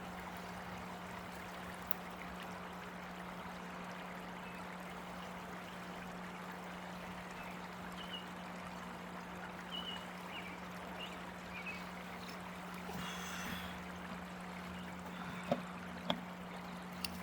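Water trickling and splashing steadily in a garden pond, with a steady low hum underneath and a few sharp clicks near the end.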